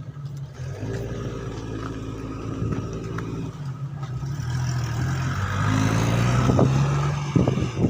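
A motor vehicle engine running and accelerating, its sound growing louder toward the end.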